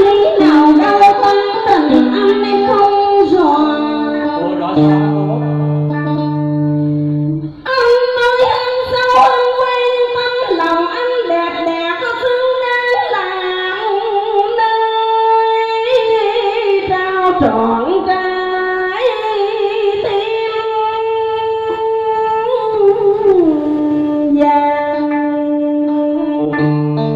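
Vietnamese đờn ca tài tử music: a guitar playing a melody of held notes that step and bend in pitch, with singing over it.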